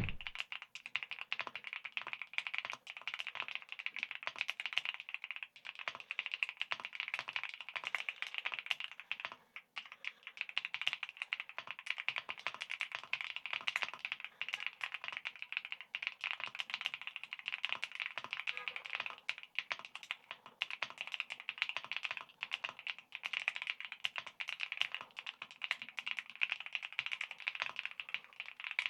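Continuous typing on a mechanical keyboard fitted throughout with ShuangCi advanced tactile switches: a dense, unbroken stream of key clicks.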